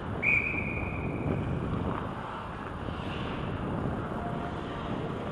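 Hockey referee's whistle blown in one long blast of about a second and a half, loudest as it starts, signalling a stoppage in play. Underneath it runs the steady rush of wind noise on a helmet-mounted microphone.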